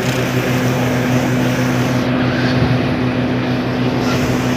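Motorcycle engine running at a steady speed while riding, a low even hum with wind and road noise over it.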